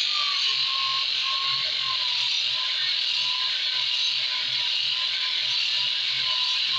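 Homemade disc sander, a sewing-machine motor turning a sanding disc, grinding a piece of wood pressed against it: a steady, loud rasping hiss of abrasive on wood. Under it the motor's whine sits a little lower in pitch while the disc is loaded.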